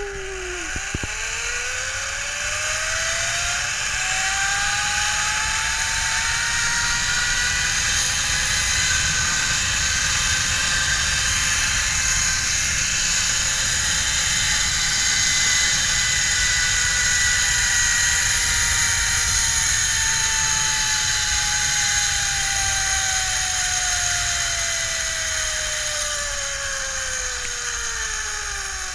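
Zipline trolley's pulley wheels whirring along the steel cable: a whine that rises in pitch as the rider picks up speed, holds high through the middle of the run, and falls as the trolley slows near the landing platform. Wind rumbles on the microphone underneath.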